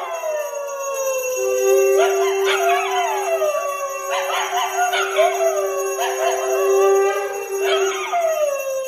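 A dog howling over and over, each howl starting high and sliding down in pitch, over a steady held tone.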